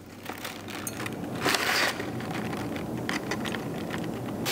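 Boxes and wrapping being handled as drinking glasses are unpacked: a run of small clicks and rattles, with a short rustle about one and a half seconds in.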